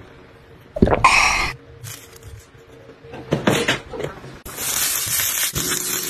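Short kitchen sounds in quick succession: a brief clatter about a second in, then sliced garlic sizzling in oil on a hot electric griddle for about a second near the end.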